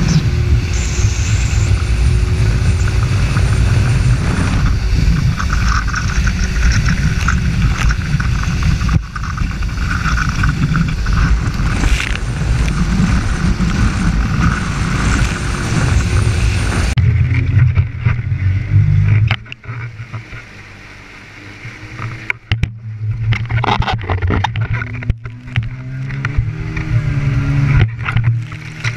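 Jet ski engine running at speed with water rushing and spray splashing against the camera. About two-thirds of the way through, the sound suddenly changes and drops away for a couple of seconds. Then the engine comes back, its pitch rising and falling, with sharp splashes.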